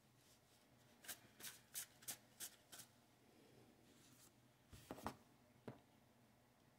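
Tarot cards being shuffled by hand, faint: a quick run of about six soft snaps of the cards, then a few more a couple of seconds later.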